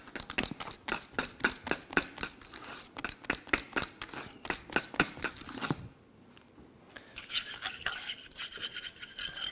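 A utensil stirring quickly in a bowl, ticking against its side several times a second as a poured mass is mixed into whipped cream. About six seconds in it stops for over a second, then resumes more softly.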